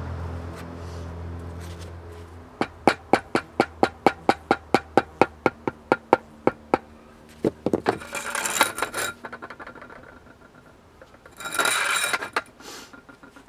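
Rubber mallet tapping a concrete patio slab down onto its mortar dabs to level it: a quick, even run of about twenty knocks, roughly five a second, then a few more. Two short bursts of scraping follow.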